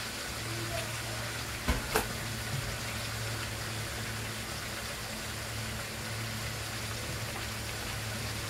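Chicken pieces frying in their marinade in a metal wok, a steady soft sizzle over a low hum, with two sharp pops about two seconds in.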